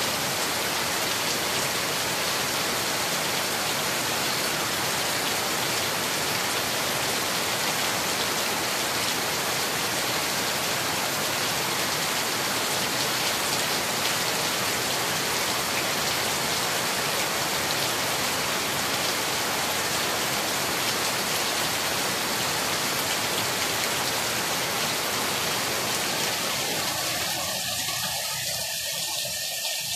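Heavy rain falling steadily on corrugated metal sheeting and wet ground, an even, unbroken hiss. Near the end the lower part of the sound drops away, leaving a thinner, higher hiss.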